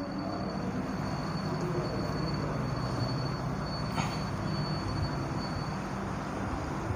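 A cloth duster rubbing across a whiteboard, wiping off marker writing, over a steady low rumble.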